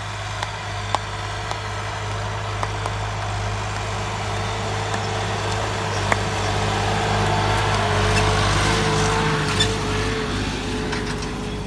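Swaraj 969 tractor's diesel engine working steadily under load while pulling a field cultivator. The drone gets louder about two-thirds of the way through.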